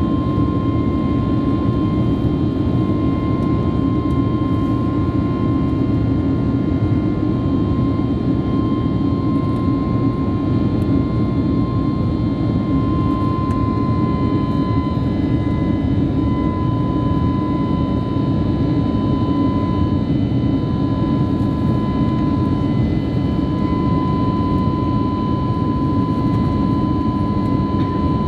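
Cabin noise aboard an Airbus A321neo: a steady roar of jet engines and airflow, with a steady high whine running through it.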